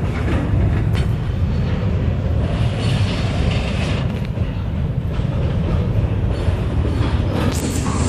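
Ferromex freight train's gondola cars rolling past: a steady, loud rumble of steel wheels on rail with a few sharp clacks.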